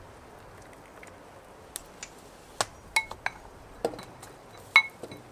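Metal utensil clinking and tapping against cookware while ingredients are stirred or scraped in. About nine sharp clinks come in the second half, some ringing briefly, the loudest near the end.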